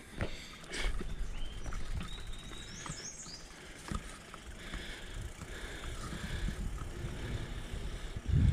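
Bicycle rolling along a paved path: tyre noise on the asphalt with scattered small clicks and rattles from the bike, and a louder low thump near the end.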